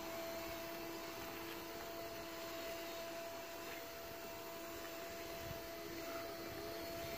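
Electric windshield-wiper drive motors of a remote-controlled lawnmower conversion, fed through an H-bridge, running with a steady two-tone whine as they drive the mower's wheels.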